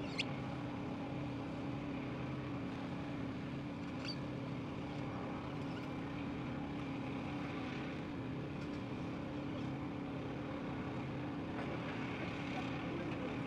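A heavy machine's engine drones steadily at a constant pitch, with a couple of faint ticks.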